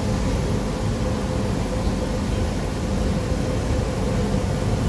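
Steady background noise: an even hiss with a low rumble underneath and a faint steady hum, unchanging throughout.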